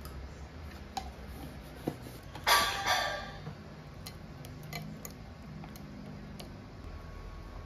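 A plastic bag of frozen blueberries crinkling loudly for about a second, then scattered light ticks and clicks as the frozen blueberries are dropped by hand onto a glass of yogurt. A couple of small knocks come before the crinkle.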